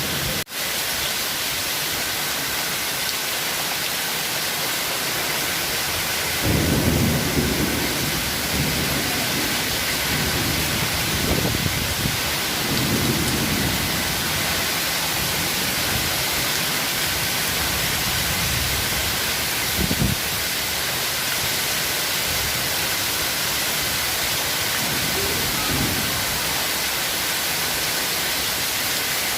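Heavy rain pouring down with thunder rumbling several times: a long roll starting about six seconds in, another around eleven to fourteen seconds, a short sharp clap about twenty seconds in, and a softer rumble near the end.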